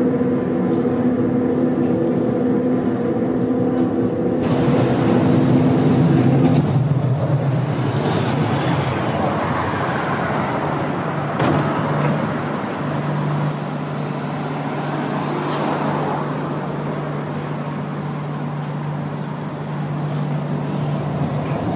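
Bombardier Flexity Outlook tram running, heard from inside the car as a steady multi-tone motor whine over running noise. About four seconds in, it changes abruptly to street level beside a tram at a stop: a steady low hum from the tram with road traffic around it.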